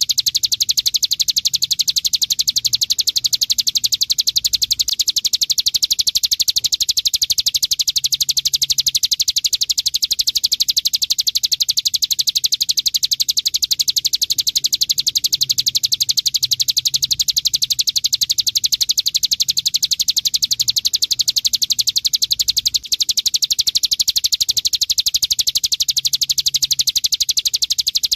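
Ciblek gunung (a prinia) singing in the 'bren' style: a very fast, unbroken machine-gun-like rattle of high chirps, held at an even level. It is a masteran track, a song recording played so that kept songbirds copy it. There is one momentary break about 23 seconds in.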